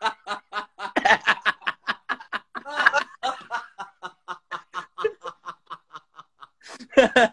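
Men laughing hard over a video call, a long run of quick short laughs that eases off a little after about five seconds and picks up again near the end.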